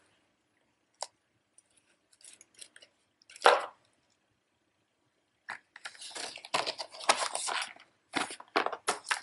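Close handling of a cardboard jewelry presentation box and a metal cage pendant: a few light clicks and taps, one sharper scrape about three and a half seconds in, then a longer stretch of scraping and rustling as the box lid is fitted on, ending in several quick taps.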